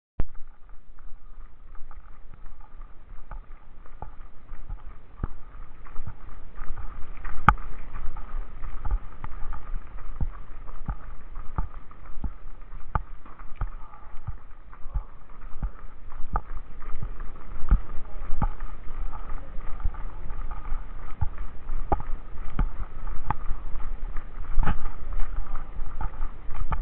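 A runner's footfalls on a dirt road, a steady rhythm of thuds about one to two a second, over a constant rushing background, heard from a camera carried by the runner.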